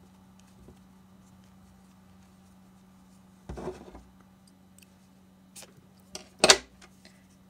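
Small metal scissors taken up off a wooden table with a brief clatter about halfway through, then a few light clicks and one sharp snip near the end as they cut a yarn tail; the snip is the loudest sound. A faint steady hum runs underneath.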